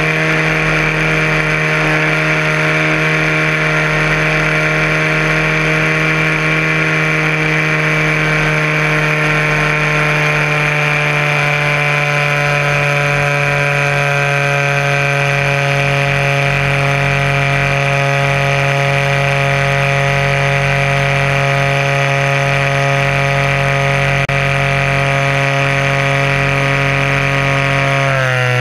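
DLE-20 single-cylinder two-stroke gas engine of an RC aerobatic plane running at a steady high throttle, heard through a camera mounted on the plane. The pitch holds steady, then drops sharply at the very end.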